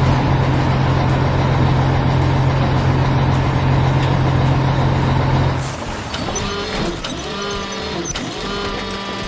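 Heavy construction-vehicle engine sound effect: a steady low engine drone that cuts off about five and a half seconds in. Warbling tones that rise and fall over and over follow it.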